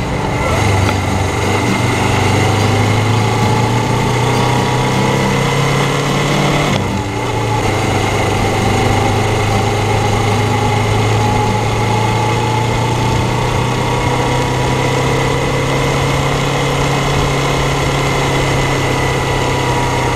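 Touring motorcycle's engine running steadily, with a brief break in its note about seven seconds in, after which the pitch climbs slowly.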